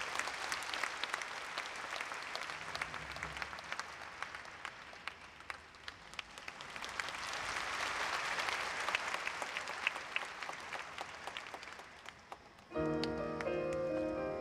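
Large audience applauding, swelling in the middle and then thinning out. Near the end, music starts with sustained keyboard chords.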